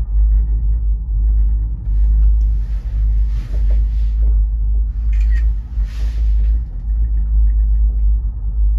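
Low, unsteady rumble inside a moving gondola cabin riding the cable up the slope, with two stretches of hissing noise about two and five seconds in.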